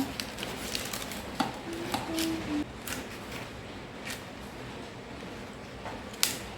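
Scattered light taps and clicks from items and packaging being handled, with a sharp click near the end the loudest; a few soft musical notes sound in the first half.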